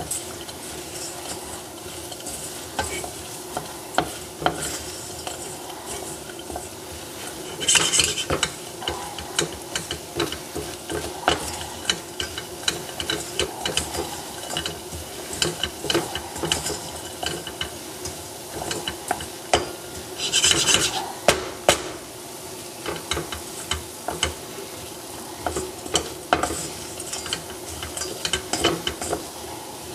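Wooden spatula stirring sugar-coated almonds and hazelnuts around a stainless steel saucepan: a continuous run of small scrapes and clicks, with two louder rasping scrapes about 8 and 20 seconds in. The grainy, crystallised sugar coating is being remelted into caramel.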